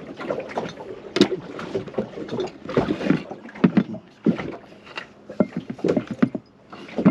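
Knife chopping on a cutting board: irregular knocks and taps, several a second at times, while ingredients such as chili are cut for a ceviche.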